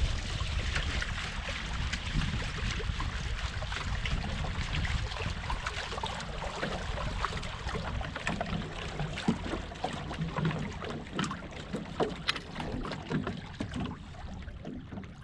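Water splashing and lapping against a small sailboat's hull, with wind rumbling on the microphone, heaviest at the start and easing off.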